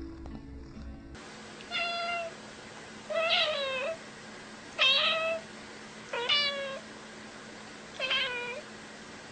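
A cat meowing five times, a short call about every second and a half, some of the meows dipping and rising in pitch.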